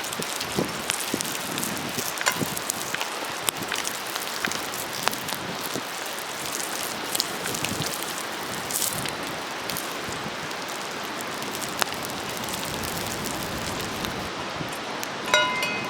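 Food sizzling steadily on a hot iron griddle over a campfire, with many small crackles and pops. Near the end there is a brief ringing metal clink.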